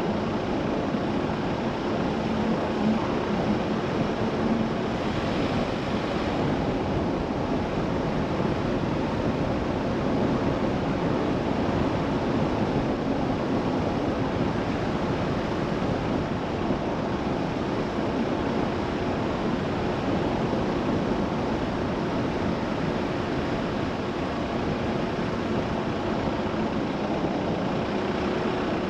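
Car driving along a narrow country lane: steady tyre and road rumble with a low, even engine hum.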